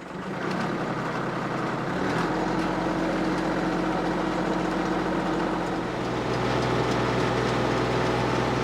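Tractor engine driving a post hole auger into hard, dry ground. The engine comes up to speed at the start and runs steadily, its pitch shifting about two seconds in and again about six seconds in as the load on the auger changes. The auger is grinding the hard top layer to powder rather than cutting cleanly.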